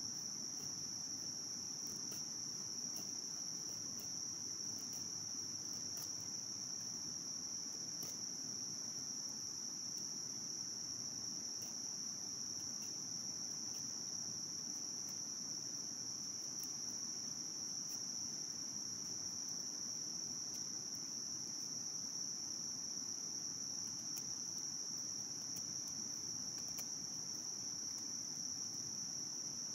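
Insects singing in one steady, unbroken high-pitched drone, with faint scattered ticks of a folding knife shaving curls off a wooden stick.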